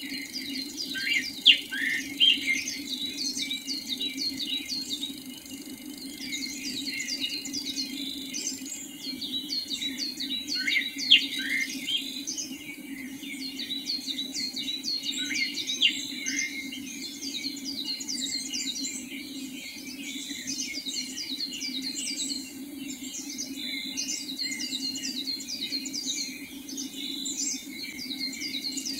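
Wild birds chirping in a dense pre-dawn chorus: a continuous run of short, quick, high down-slurred notes, with a few louder falling whistles, the loudest about a second and a half in and again around 11 seconds. A steady low hum runs underneath.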